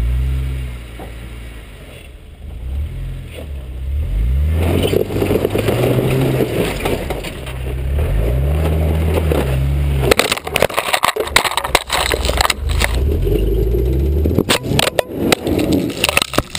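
An off-road 4x4's engine revving up and down several times as it crawls over rough ground. From about ten seconds in, a rapid run of knocks and scraping clatter joins it.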